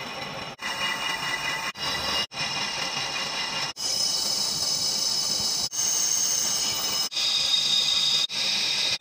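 Metal lathe turning a steel tube, the cutting tool hissing against the spinning metal with a high-pitched whine over it. The sound stops and restarts abruptly about six times, and the pitch of the whine shifts after each restart.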